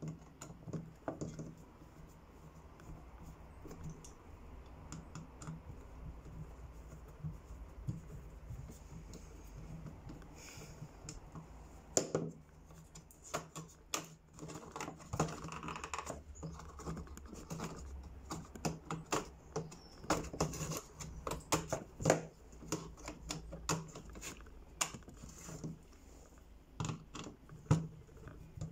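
A screwdriver and small hard parts clicking, tapping and scraping as a gun is worked on by hand: irregular light clicks, with a few sharper knocks.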